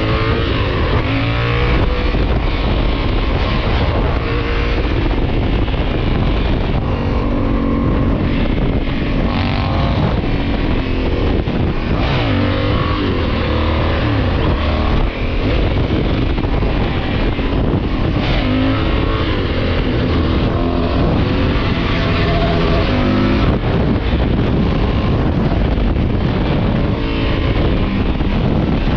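Motorcycle engine running hard at highway speed under heavy wind rush, its pitch climbing and dropping several times as the rider accelerates.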